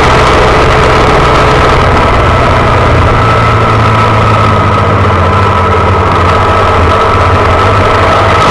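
Honda Monkey's single-cylinder four-stroke engine running loud at a steady pitch, heard close up from a handlebar-mounted camera.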